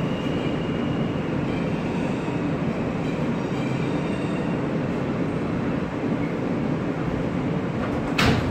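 New York City subway car running through the tunnel: a steady rumble of wheels and car noise with a faint whine that fades after a few seconds, and one sharp clack near the end.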